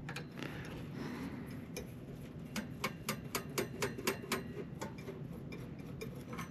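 Light clicks and taps from hand tools and the metal parts of a power supply being taken apart, with a quick regular run of clicks, about four a second, in the middle.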